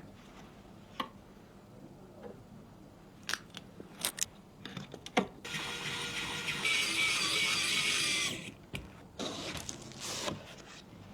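Handling noises: a few sharp clicks and taps, then about three seconds of a steady scraping hiss with a faint high whine in it, followed by two shorter scrapes near the end.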